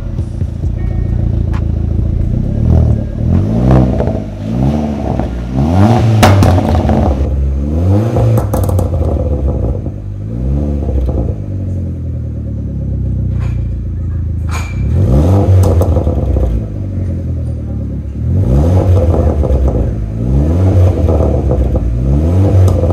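Fiat Punto Abarth's turbocharged 1.4-litre four-cylinder being revved while parked: two runs of quick throttle blips, each rising in pitch and dropping back, with a spell of idle between them. The exhaust is a turbo-back system with the resonator deleted.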